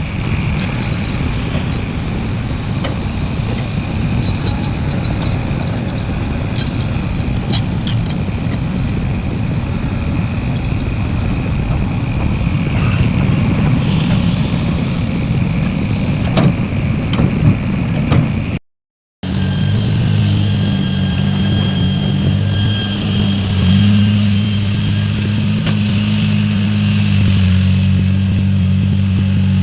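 Heavy diesel earthmoving machinery running, with scattered clanks over a rough engine rumble. After a brief dropout, a steadier engine drone with a clear hum.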